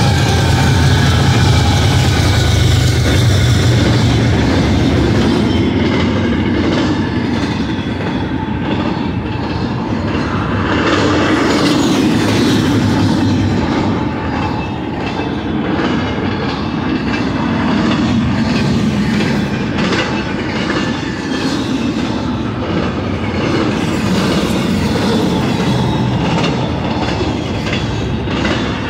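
Fast-moving double-stack intermodal freight train passing close by. The lead GE diesel locomotives give a heavy low drone for the first few seconds, then a steady rumble and clatter of the container well cars' wheels on the rails.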